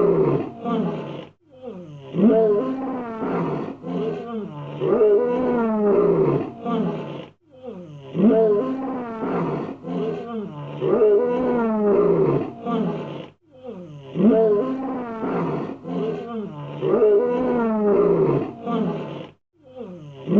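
Lion roaring: a bout that opens with loud, deep roars and tails off into shorter grunts. The same bout repeats about every six seconds with a brief break between.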